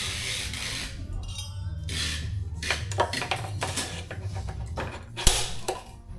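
Small metal bicycle headset parts clinking and knocking against each other as they are handled and worked. There is a short rushing scrape at the start, a quick run of clicks in the middle, and one sharp knock about five seconds in.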